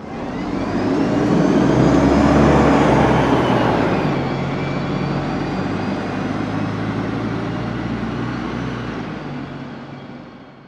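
Bus engine running as the bus pulls away: a steady engine hum that swells over the first couple of seconds, holds, then fades out near the end.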